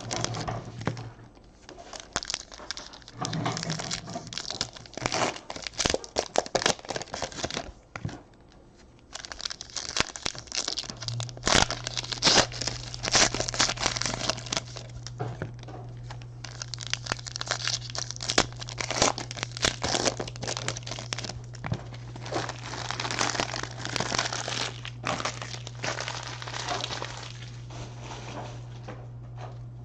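Foil trading-card pack wrappers crinkling and tearing open, with cards shuffled and handled, in irregular stretches with a short lull partway through. A steady low hum comes in about a third of the way through and continues.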